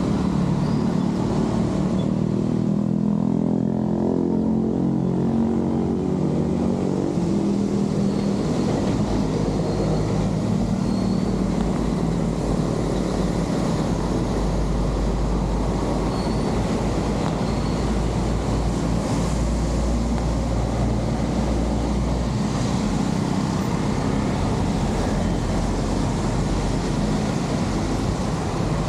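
Road traffic on a wet road in steady rain: a constant rushing noise under a low engine rumble, with a deeper engine hum fading away over the first several seconds.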